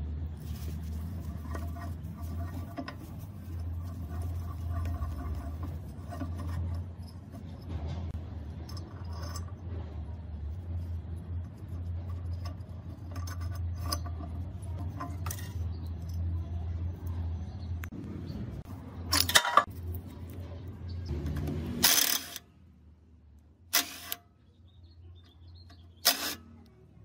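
Metal tools and bolts clicking and scraping against a rusty air-compressor head as it is taken apart, over a steady low hum. A few sharp metal clanks stand out near the end, after the hum stops.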